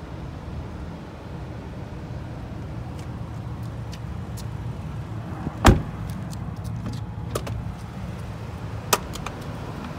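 Steady low hum inside a car's cabin, with a few light handling clicks and a sharp knock a little past halfway, then a smaller one near the end.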